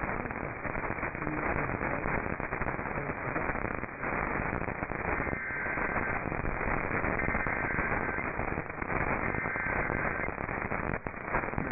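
Radio static: a steady hiss with crackling from a receiver with no clear signal, its sound cut off at the top like a narrow-band radio. Faint steady high tones come and go three times in the middle.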